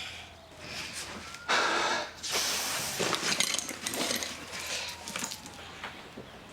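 Police siren sounding faintly, its pitch gliding slowly up and down, under louder bursts of breathy, rustling hiss and clicks; the loudest burst comes about one and a half seconds in.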